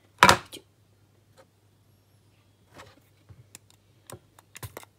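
Pump spray bottle of antiseptic giving one short spray, a hiss about a quarter second in with a smaller puff right after. Faint scattered clicks and taps follow.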